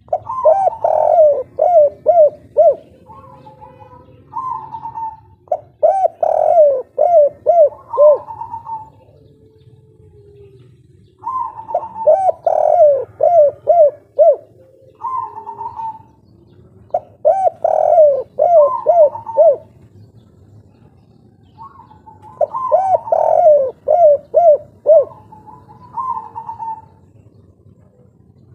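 Spotted dove singing a 'kuk 3' cooing song: five phrases a few seconds apart, each a quick run of short coos.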